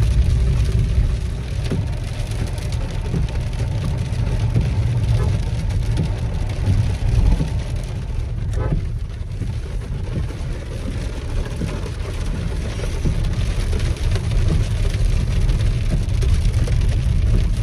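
Inside the cabin of a car driving on a wet road in rain: a steady low rumble of engine and tyres, with rain on the body and windscreen.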